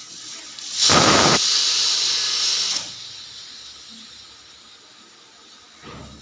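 Pressure cooker whistle blowing: about a second in, the weight valve lifts and steam bursts out in a sharp, loud blast that settles into a high hiss for about two seconds before dying away. A short, fainter puff of steam comes near the end.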